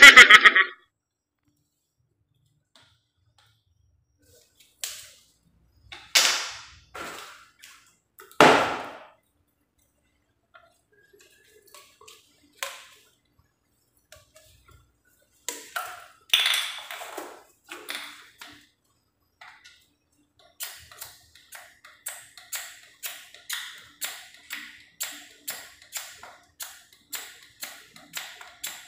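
A blue plastic water pipe handled by hand: a loud knock at the start and a few scattered knocks and scrapes, then, from about two-thirds of the way in, a steady run of short scraping strokes, about two a second, as the pipe end is worked.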